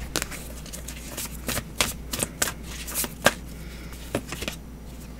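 A deck of tarot cards shuffled by hand: a run of quick, irregular card snaps and rustles that stops about four and a half seconds in.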